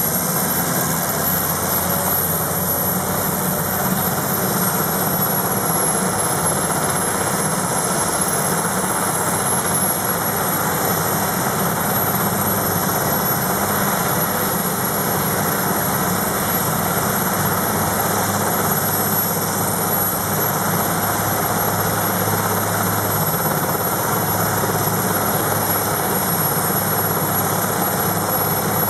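Sikorsky S-61N helicopter running on the ground, its twin turboshaft engines and main and tail rotors turning at a steady pace, with a thin high whine over the broad running noise.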